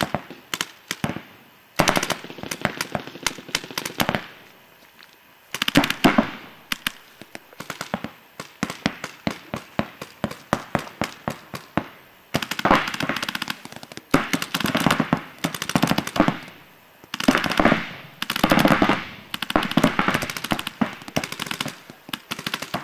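Paintball markers firing rapid strings of shots back and forth, several shots a second, in runs of a few seconds with short lulls between.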